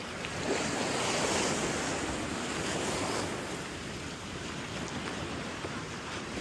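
Rough surf from a stormy sea: a steady rushing wash of waves that swells about half a second in and eases off after about three seconds.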